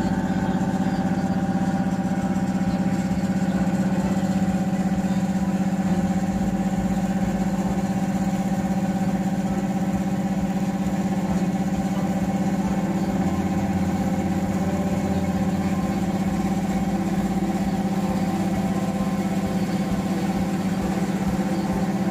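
Engine of a river passenger launch running steadily while underway, one unbroken low drone.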